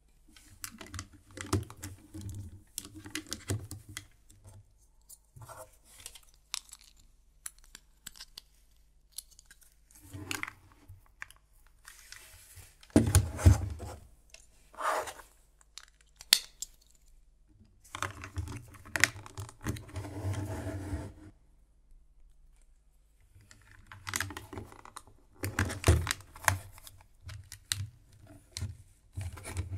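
Plastic LEGO bricks and parts being handled and pressed together on a tabletop: irregular clicks, clacks and rubbing in bursts with short pauses, loudest about halfway through and again near the end.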